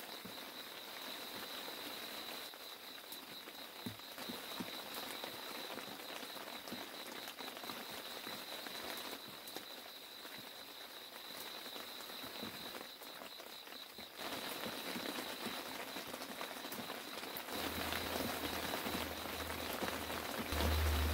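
Steady rain pattering on the lake surface and rocks, with a continuous high-pitched trilling chorus of small calling animals. The rain grows louder in the last few seconds, joined by a low rumble.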